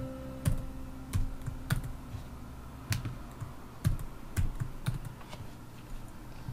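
Typing on a computer keyboard: about ten separate keystrokes, slow and unevenly spaced.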